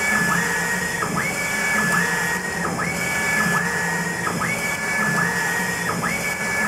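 UV flatbed inkjet printer's print-head carriage shuttling back and forth across the bed, its drive motor whining and stepping between a higher and a lower pitch with each pass, about one pass every 0.8 seconds, over a steady machine hum.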